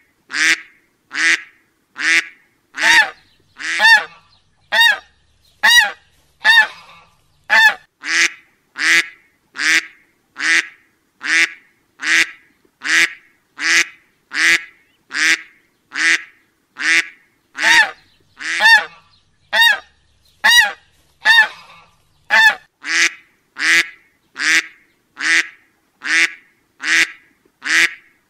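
A duck quacking over and over at an even pace, about three quacks every two seconds. Some quacks come out clearer and more nasal than others.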